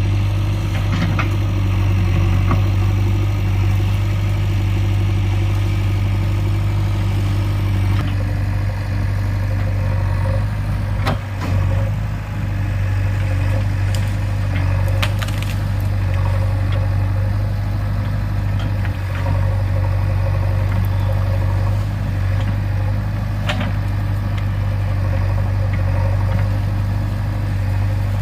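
JCB 3DX backhoe loader's diesel engine running steadily with a deep hum, with a few sharp cracks or knocks, one about eleven seconds in, another around fifteen seconds and one near the end.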